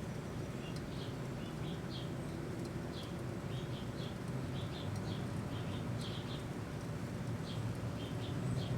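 Microwave oven running with a steady low hum, heating a sealed tin of canned biscuits. Small birds chirp over it, short high chirps several times a second.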